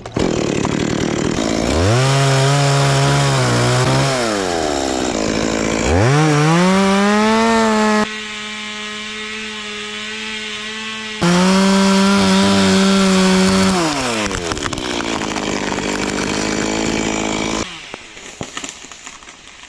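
Stihl two-stroke chainsaw revving hard in three bursts, its pitch climbing to a high steady whine and falling back to a lower note between them, then dropping away sharply near the end.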